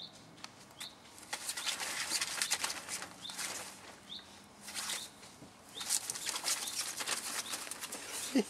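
Fabric play tunnel rustling and crinkling in bursts as a Dobermann puppy scrambles through it.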